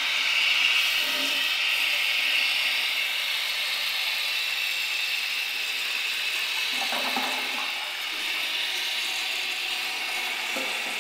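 1984 Kohler Highline toilet tank refilling after a flush: the fill valve hisses steadily as water runs in, easing off slightly over several seconds.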